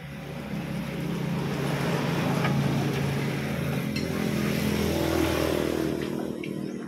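A motor vehicle engine running close by, growing louder over the first couple of seconds, holding, then fading near the end, as it passes.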